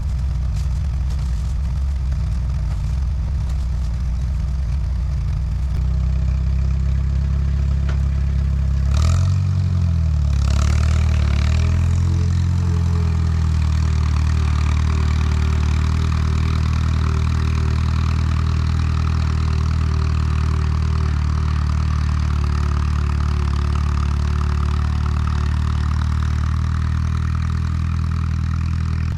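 Allis-Chalmers WD tractor's four-cylinder engine running steadily under way. About nine seconds in its pitch shifts, then it settles back into a steady run for the rest of the time.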